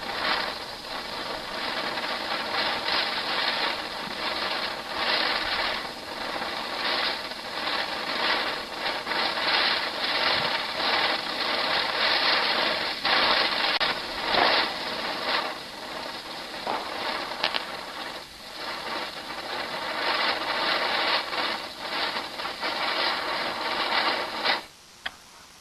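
Catherine wheel firework spinning, a rough fizzing hiss full of rapid crackles that surges up and down in loudness, then cuts off suddenly near the end as it burns out.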